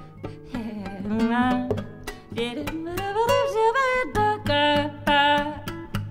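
Free jazz improvisation for female voice and acoustic guitar: wordless vocal lines slide up and down in pitch while the guitar plays short, sharply plucked notes.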